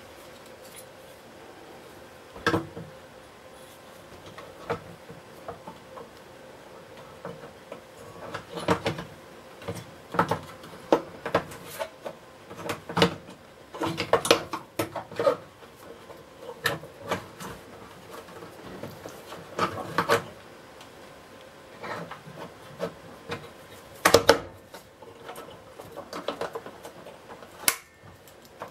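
Irregular clicks, knocks and rubbing of parts being handled as the drive belt and brush roll are fitted into the base of a Hoover Junior 1346A upright vacuum cleaner, with a few sharper knocks among them.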